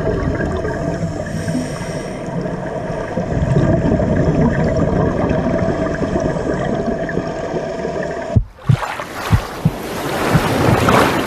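Muffled underwater sound through a camera housing: a steady low rumble with faint steady hum tones. About eight seconds in it cuts to splashing seawater at the surface, a hissing wash with several sharp thumps as water hits the camera.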